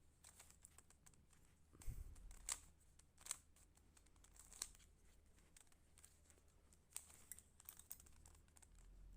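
Faint, irregular plastic clicks of a Rubik's cube's layers being twisted by hand, a few sharper clacks among them.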